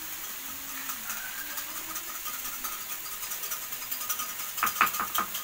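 Curry frying in a pan on a gas stove, a steady faint sizzle with scattered small crackles. Near the end a metal spoon stirs in a small bowl, clinking against its side in a quick run of taps.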